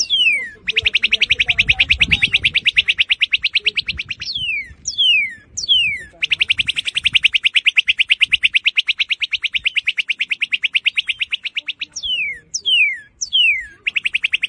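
Northern cardinal singing: sharp, loud downslurred whistles alternating with long, rapid trills of evenly repeated notes. Two trills last several seconds each, and a third starts near the end.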